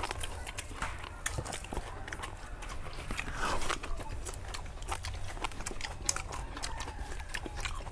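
People chewing and eating grilled pork, close to a clip-on microphone: a run of irregular wet mouth clicks and smacks, with a brief murmur about three and a half seconds in.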